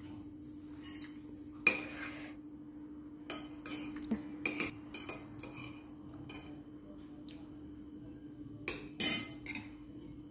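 Metal spoon clinking and scraping against a bowl and plate while food is served and eaten: a sharp clink about a second and a half in, a run of lighter clinks around four to five seconds in, and another loud clink near the end.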